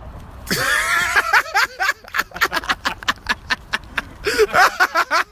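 Wordless voices: a drawn-out shout, then a quick run of short laughing bursts.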